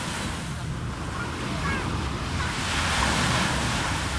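Ocean surf breaking and washing up the shore, the wash swelling louder about three seconds in. Low wind rumble on the microphone underneath.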